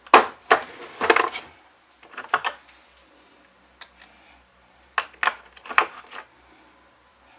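Metal hand tools and small chainsaw parts clinking and knocking on a wooden workbench during disassembly: a few sharp clatters in quick clusters with short quiet gaps between.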